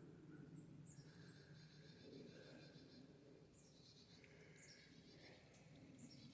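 Faint small-bird calls: short high chirps and several buzzy trills over a very quiet outdoor background.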